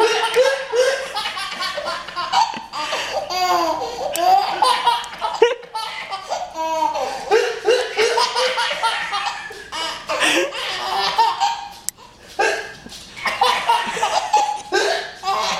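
Baby laughing in long, repeated fits of high-pitched belly laughs, one burst of laughter following another with only short breaks.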